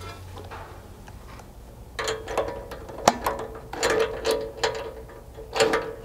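Cordless power tool driving a 3/4-inch socket on a swivel in several short bursts, mechanical whirring and clicking, as it tightens the nuts on the rock slider's carriage bolts. The bursts begin about two seconds in.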